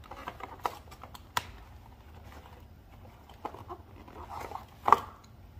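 Hands lifting a pair of plastic kids' headphones out of a white packaging insert: scattered light clicks and rustles of handling, with a sharper knock near the end.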